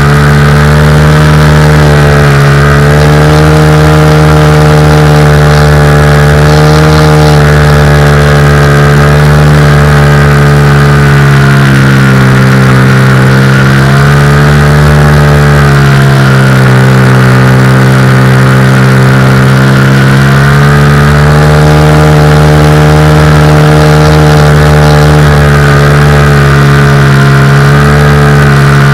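Cougar 2000 radio-controlled model aircraft's motor and propeller running in flight, a loud, steady drone whose pitch dips and rises several times as the throttle changes, with wind rumbling on the microphone.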